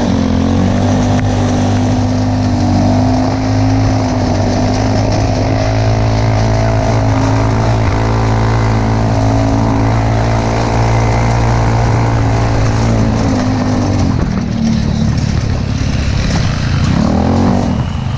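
Engine of a small tube-frame off-road buggy running at a steady pace while driving over snow. About fourteen seconds in, the steady drone drops away as the buggy slows, with a brief rev near the end.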